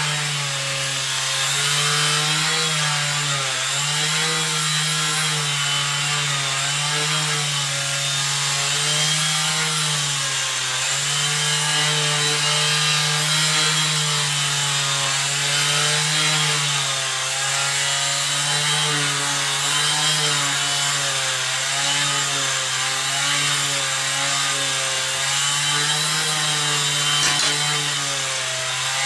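A machine's motor running steadily: a continuous hum whose pitch wavers slightly.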